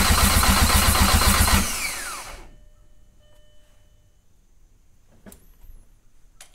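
Starter cranking a VW 1.8-litre four-cylinder engine over quickly and evenly without it firing, because the relay is pulled and the engine is only being turned over to prime oil. The cranking stops about a second and a half in and the starter whines down in falling pitch, followed by a few faint clicks.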